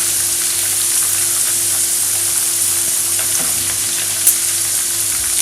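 Chicken gizzard pieces frying in hot vegetable oil in a small frying pan: a steady sizzle, with one short light tick about four seconds in.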